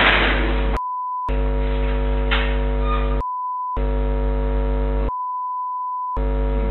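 Steady electrical hum on the security camera's audio, cut out three times by a censor bleep, a single steady high tone that replaces all other sound. Two short bleeps come about a second and about three seconds in, and a longer one of about a second comes near the end.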